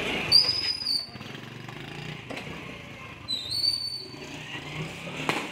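Two short, high-pitched whistles about three seconds apart, each a quick rise into a held note, over low street background; a single sharp knock near the end.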